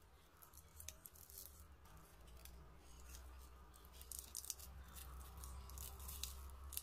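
Foil wrapper of a Cadbury Daim mini egg being peeled off by hand: faint crinkling and tearing made of many small irregular crackles.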